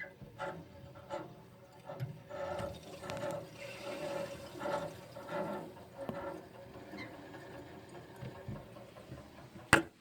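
Water rushing back into newly repaired copper supply lines after the water is turned back on, coming in uneven spurts. A sharp knock sounds near the end.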